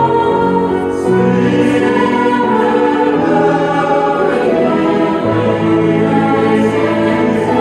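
Large school choir singing in parts with piano accompaniment, holding long notes that change pitch about every second.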